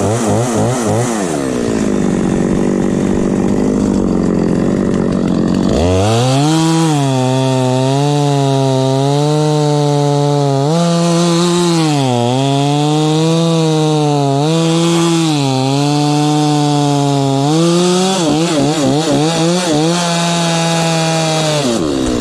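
Stihl two-stroke chainsaw running hard while cutting through a downed dead ash log. The engine note sags and recovers again and again as the chain bites, with a few quick throttle blips near the end before the revs drop.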